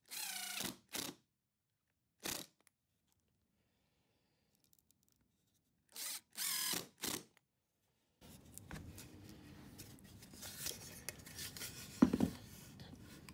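Cordless drill with a square-drive bit driving pocket-hole screws into pine: short bursts of motor whine rising in pitch, several in the first few seconds and again about six seconds in. From about eight seconds on, the wood pieces are rubbed and handled, with a knock about twelve seconds in.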